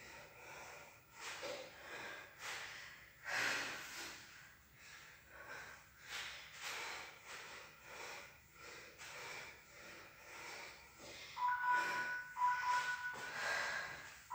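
Heavy, rhythmic breathing in short puffs, one with each squat rep. About eleven seconds in, a phone timer starts beeping in a two-note pattern about once a second, marking the end of the exercise interval.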